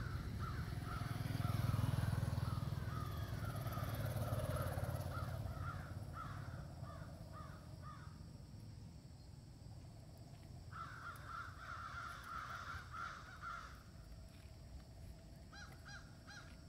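Harsh animal calls repeated in quick runs: a long run through the first half, another burst about eleven seconds in, and a few evenly spaced calls near the end. A low rumble lies under the first few seconds.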